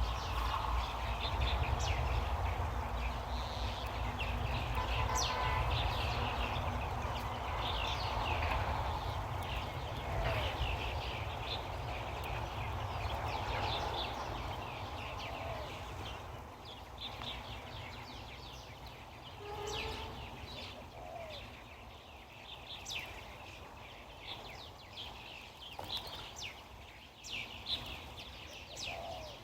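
Small birds chirping on and off over a low wind rumble on the microphone; the wind eases after about fifteen seconds.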